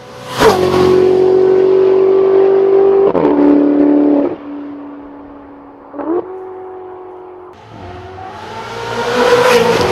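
Ferrari 488 GTB's twin-turbo V8 through a Novitec exhaust, driven hard past the microphone. A loud pass comes about half a second in, with the pitch dropping as it goes by. The engine then pulls away with steps in pitch from gear changes at about three and six seconds. A second run then builds up to another loud pass near the end.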